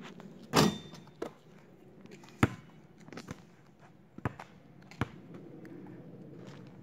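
Scattered, irregular sharp knocks and thumps, the loudest about half a second and two and a half seconds in, from a basketball bouncing on asphalt and the phone being handled, over a faint steady outdoor background.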